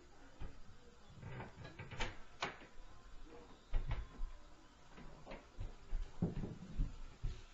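Stomping footsteps on the floor of the apartment above, heard through the ceiling: dull low thuds at irregular intervals, heaviest about four seconds in and again past six seconds, with a few sharper knocks around two seconds.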